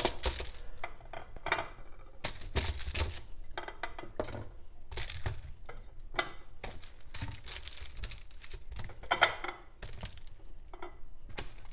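Raw potato wedges set down one after another on a parchment-lined metal baking tray: irregular soft knocks and paper crinkles, with the odd clink of a ceramic plate as the wedges are scooped off it.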